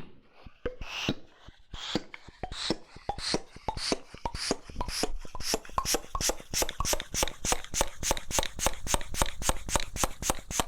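Floor bike pump worked in repeated strokes, each a short rush of air with a click. The strokes come faster as it goes on, ending at about three a second.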